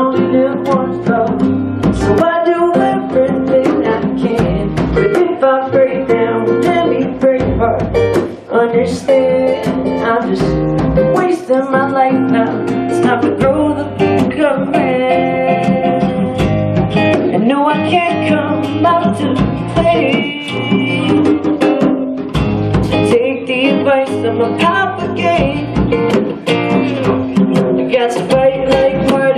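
Live acoustic band music: two acoustic guitars strummed and picked over a hand drum played with the hands, with a man singing.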